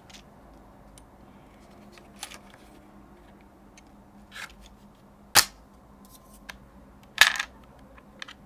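Handling sounds from unpacking a keyboard kit: a few separate sharp clicks and knocks on a quiet background. The loudest single click comes about five seconds in, and a short cluster of clicks follows about two seconds later.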